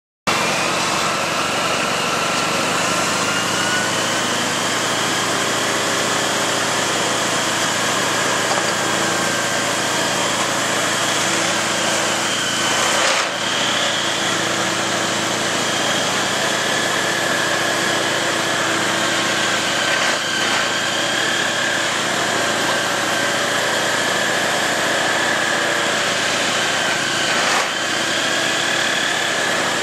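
Multiple tie tamper (railway track tamping machine) running in place: a loud, steady mechanical din with a high whine that drifts slightly in pitch. The noise dips briefly three times, about seven seconds apart.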